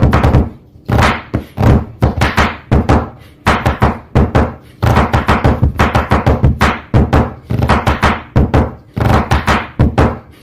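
Music with a fast, heavy drum beat over deep bass. The beat drops out briefly a few times, about half a second in, near three seconds and near the end.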